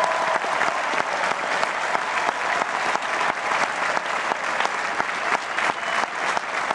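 A large convention crowd applauding: many people clapping at once in a dense, steady patter.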